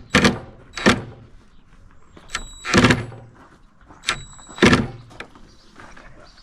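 A series of sharp knocks and clatters, about seven, from things being picked up and set down in a workshop. The loudest two come near the middle and about two-thirds of the way through.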